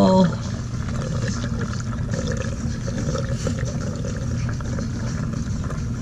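Dishwasher drain pump running steadily on the drain cycle, a low hum with water rushing through the drain hose and air gap. The water is draining freely and none backs up out of the air gap: the cleared hose is no longer clogged.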